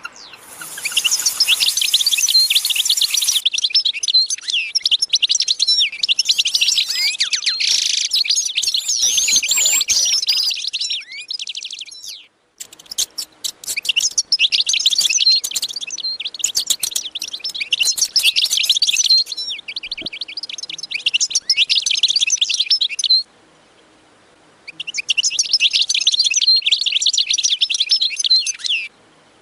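Many small birds chirping and twittering together in a dense chorus of rapid, high calls. It breaks off abruptly three times, a little under halfway, about three-quarters of the way and near the end.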